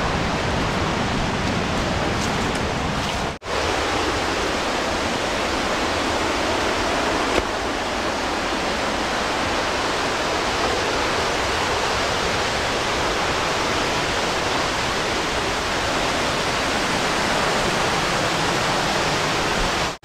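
Steady rushing of water from a waterfall and river rapids, an even, loud noise of falling water with a brief dropout about three seconds in.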